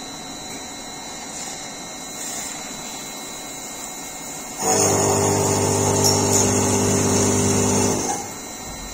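CNC lathe running with its spindle turning, then a loud cutting sound with a pitched whine as the drill bit feeds into the spinning workpiece on centre. It stops suddenly about three seconds later as the drill reaches depth.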